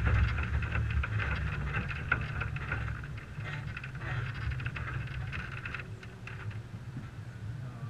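1998 Toyota 4Runner driving slowly over a rutted dirt track, heard from a camera on its hood. A low engine rumble and wind noise on the microphone, with scattered ticks, fade steadily as the truck slows nearly to a stop.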